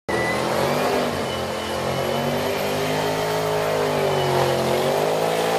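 Supercharged V8 engine of a modified Holden VF Commodore running, its pitch holding fairly steady with slight slow dips and rises.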